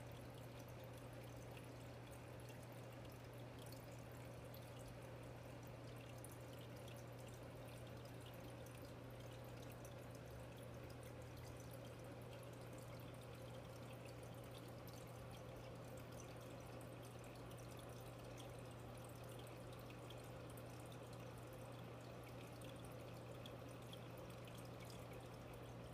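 Aquarium filter or pump running: a faint steady hum with water trickling and small scattered drips.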